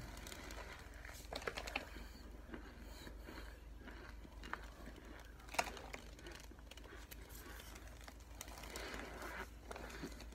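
Biting and chewing a hard brick of cornstarch: irregular dry crunches and crackles, one sharper crunch about halfway through.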